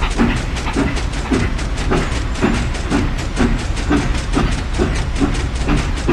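A small engine chugging at a steady rhythm, about five beats a second, over a constant low rumble.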